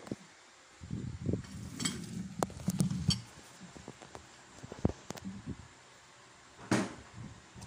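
Phone camera being handled and repositioned on a table: rubbing and knocking against the mount, sharp clicks and light clinks of dishes and cutlery, with a louder bump near the end.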